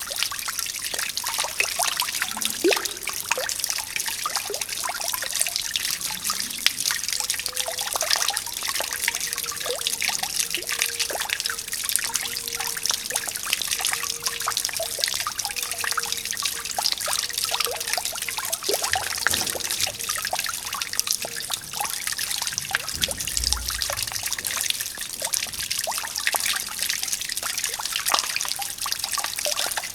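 Water fountain running: water trickling and splashing continuously, with a steady patter of small droplet splashes.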